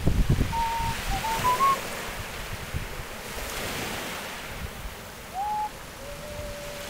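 Rough sea surf washing and breaking, with wind gusting on the microphone, strongest in the first couple of seconds. A few short, thin whistle-like notes sound over it, one sliding upward about five seconds in and a steadier, lower one near the end.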